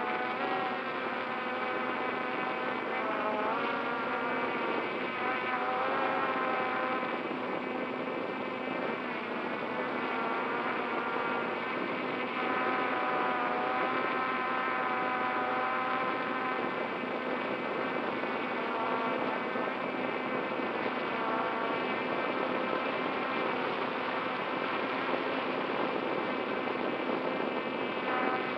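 Radio-controlled drone's motors and propellers buzzing, heard from its onboard camera, the pitch of the whine rising and falling as the throttle changes.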